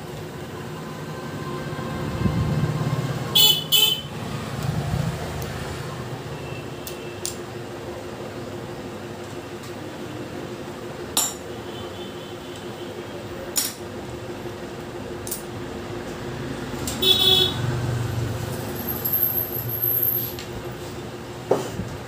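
Short vehicle horn toots from nearby traffic, a pair about three and a half seconds in and another around seventeen seconds, over traffic rumble and a steady hum. A few sharp metallic clicks come from parts being handled in an open motorcycle engine crankcase.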